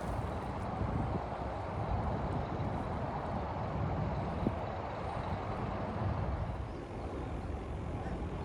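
Steady low rumble of a vehicle on the move, with engine and road noise and no distinct events.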